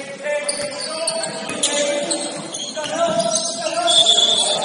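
Basketball game in a gym: a ball bouncing on the hardwood court in sharp knocks, with players' voices and shouts over it.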